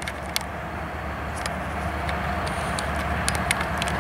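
Diesel freight locomotives approaching from a distance, a steady low engine rumble, with a few short high ticks over it.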